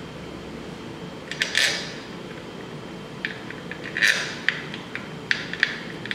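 Scattered metallic clinks and taps as steel bolts are handled and set by hand into the aluminium crankcase halves of a Polaris 700 engine, with a couple of louder clatters near the start and in the middle.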